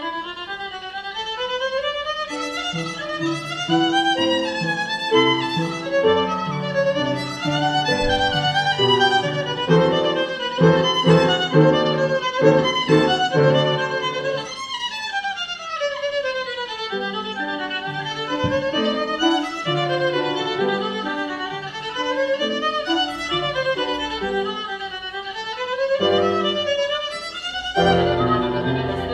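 Violin playing a melody with upright piano accompaniment, moving in fast runs of notes, with a descending run about halfway through.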